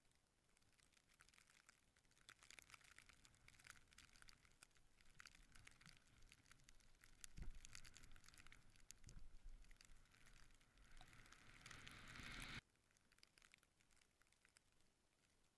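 Faint crackling and rustling of skis running through deep powder snow, with a low thump about halfway and a louder hiss of snow building near the end that cuts off suddenly.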